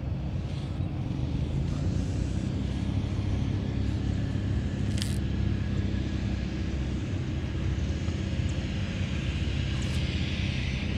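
A steady low engine rumble, with one brief click about five seconds in.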